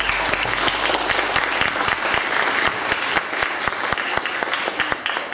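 Applause: many hands clapping steadily together.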